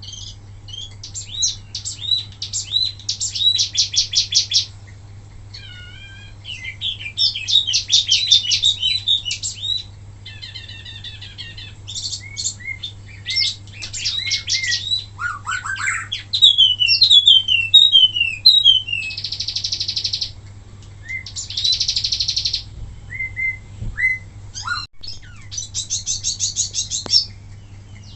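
A wambi mini songbird singing its rapid 'tembakan' song: bursts of very fast trilled notes and sharp whistled slurs, many of them falling, in phrases of a second or two with short pauses between. A low steady hum runs underneath.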